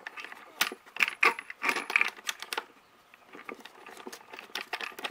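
Irregular clinks and taps of small metal hardware against the filter's top and the plastic airbox as a hand fumbles a screw into a cone air filter, with a brief lull about halfway through.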